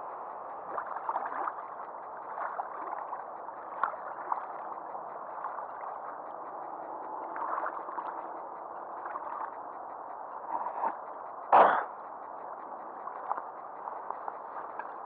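Small water sounds, lake water lapping and gurgling close by, over a steady hiss with scattered small ticks. A single sharp knock stands out about two-thirds of the way through.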